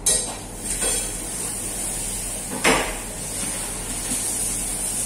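Clatter of dishes and utensils at a kitchen sink while raw chicken is handled: a few sharp knocks, the loudest right at the start and about two and a half seconds in, over a steady high hiss.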